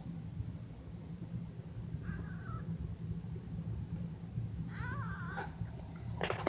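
Week-old kittens mewing: a faint short mew about two seconds in, then a longer wavering mew about five seconds in, over a steady low hum. A few sharp knocks come near the end.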